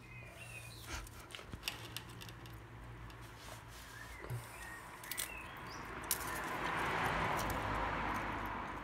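Light metallic clicks and taps of small hand tools working at a pitbike engine's valve adjuster, over a low steady hum; a soft hiss swells up in the second half.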